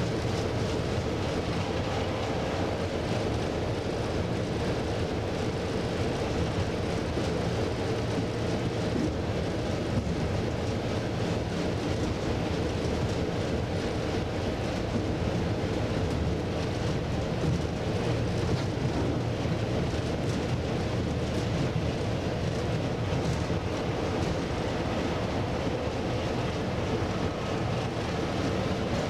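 Class 33 diesel locomotive's Sulzer eight-cylinder engine running steadily, heard from inside the cab, mixed with the rumble of wheels on the rails as the train moves slowly.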